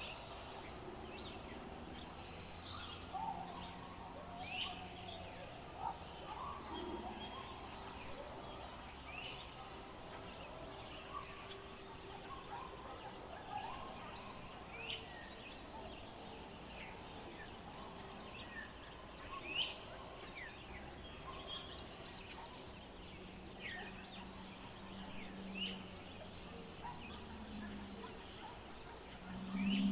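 Birds calling in short, scattered chirps over a steady outdoor background, with no clear dog barking.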